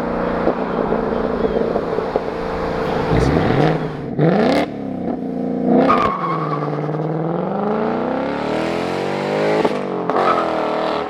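2024 Ford Mustang GT's Gen 4 Coyote 5.0 V8 through a Corsa 3-inch double H-pipe exhaust, driving past under acceleration. The engine note climbs, drops and climbs again, with a few abrupt breaks.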